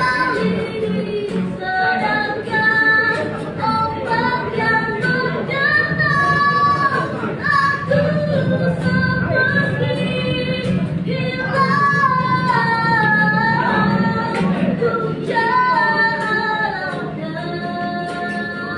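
A woman singing a slow Indonesian ballad over instrumental accompaniment, with long held notes that waver in pitch.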